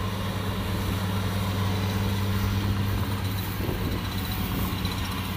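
Kubota DC-60 combine harvester's diesel engine running steadily under load as it cuts and threshes standing rice: a constant low drone with even machine noise over it.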